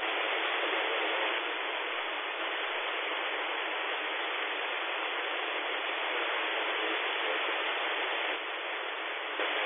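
Hiss of static from a software-defined radio receiver scanning the aircraft band in AM, with no transmission on the frequencies it stops on. The hiss changes slightly in level a few times as the scanner hops from one frequency to the next.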